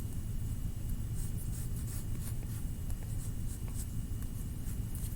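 Pencil drawing on paper: a run of short, scratchy strokes sketching a wing, over a steady low hum.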